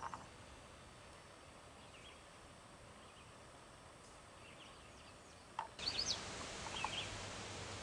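Faint open-air field ambience with a few short, scattered bird chirps. About six seconds in, the hiss grows louder and a handful of quick bird chirps come close together.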